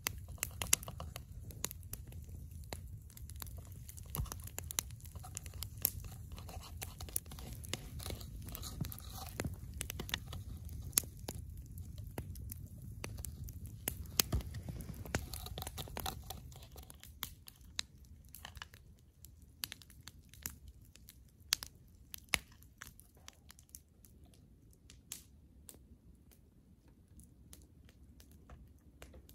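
Wood campfire crackling and popping, with sharp irregular snaps over a low rumble. After about seventeen seconds the rumble drops away and the crackle goes on more faintly.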